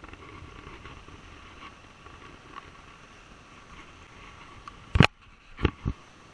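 Steady wash of surf and wind noise, then three heavy knocks close to the microphone about five seconds in, the first the loudest: handling bumps against the camera while the hooked fish is unhooked with pliers.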